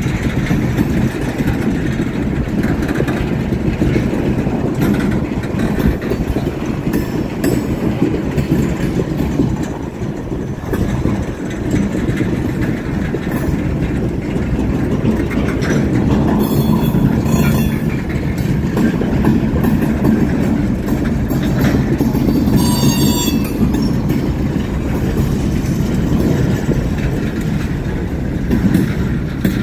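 Freight cars rolling past close by: a steady rumble of steel wheels on rail with clicking over the rail joints, and two brief metallic wheel screeches, one about halfway through and one a little later.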